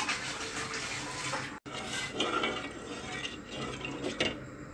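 A spoon stirring turmeric water in an aluminium saucepan, with small scrapes and knocks against the pot over a faint steady hum.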